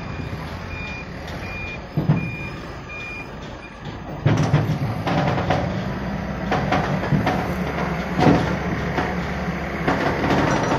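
Forklift reversing alarm beeping about twice a second over the running engine, stopping after about three seconds. About four seconds in the engine gets louder as the forklift works, with several sharp metallic knocks and clanks.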